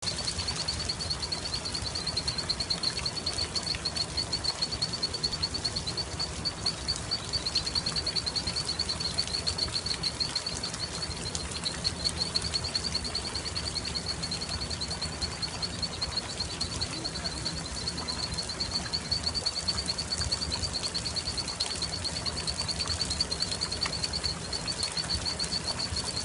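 Outdoor nature ambience: a continuous, high-pitched, rapidly pulsing animal call that never stops, over a steady background hiss and a low rumble.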